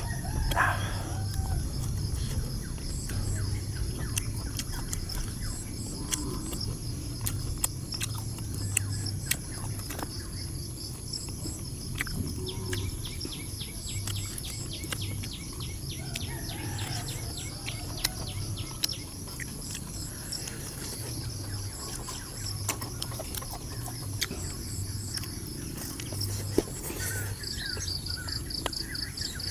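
Outdoor countryside ambience: a steady high insect drone with repeated chirping from insects and birds throughout, and scattered sharp clicks.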